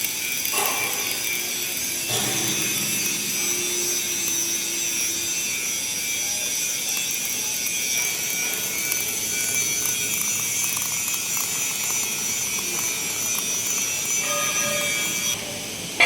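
MIG welding arc crackling and sizzling steadily through one long weld bead, cutting off abruptly near the end.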